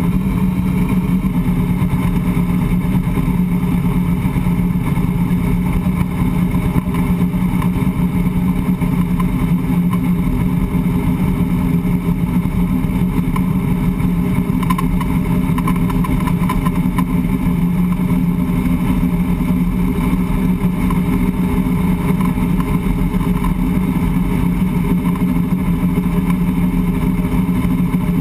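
Drag-radial race car's engine running steadily at low speed, heard from inside the stripped-out cabin, with no revving.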